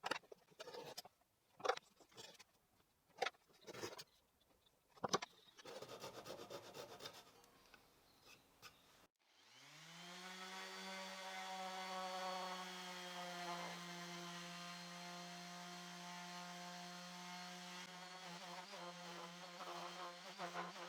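Several sharp knocks of a hammer tapping wooden dowels into screw holes, then a short stretch of hand sawing as a Japanese pull saw trims a dowel flush. About nine seconds in, an electric sander spins up with a rising whine and runs steadily with a humming tone.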